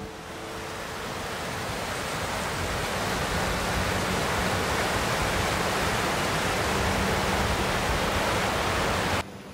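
Fast mountain stream rushing and splashing over rocks, a steady, loud hiss of water. It swells in over the first couple of seconds and cuts off suddenly near the end.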